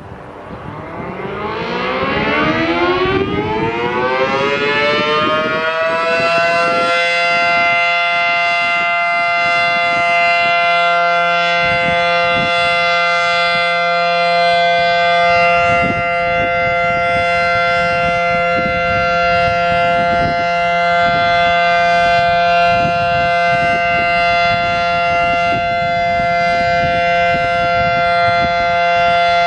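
Federal Signal Model 7T outdoor warning siren, a two-tone siren with 9- and 12-port rotors driven by a capacitor-start induction motor, winding up with a rising wail over about the first six seconds. It then holds a steady, loud two-note chord: the steady alert signal.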